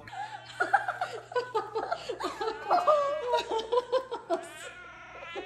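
A person laughing, a long run of high-pitched giggling that trails off about four and a half seconds in.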